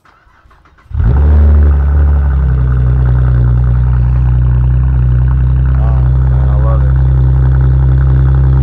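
2015 Chevrolet Camaro's 3.6-litre V6 cold-started, heard at the tailpipe: a short crank, then about a second in it fires with a loud rev flare that drops back after another second into a steady idle.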